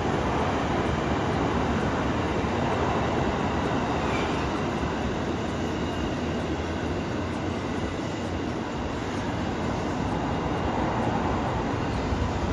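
A train running past with a steady, unbroken noise of wheels on the rails.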